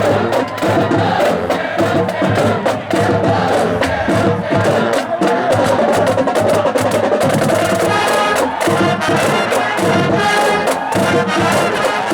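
High school band playing in the stands: brass and drums together in a steady beat.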